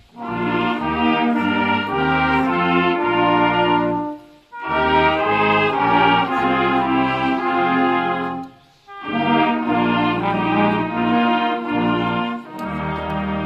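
Brass choir of trumpets and tuba playing in several parts, phrase by phrase, breaking off briefly about four and nine seconds in; near the end it moves onto a long held chord.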